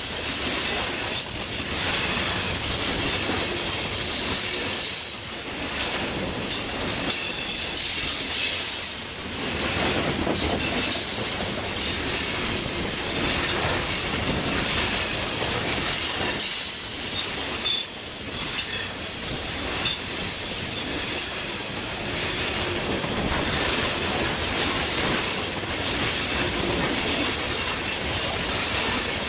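Loaded coal hopper cars of a freight train rolling past, steel wheels clacking over the rail joints, with high-pitched wheel squeal coming and going.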